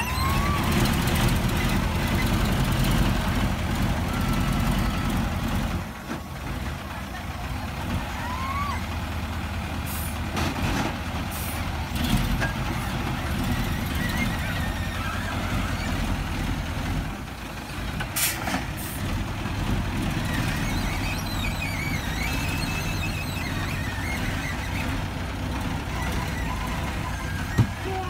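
Loaded Hino dump truck's diesel engine running as the truck manoeuvres, louder for the first few seconds and then settling lower. Several short hisses come about ten seconds in and again near eighteen seconds.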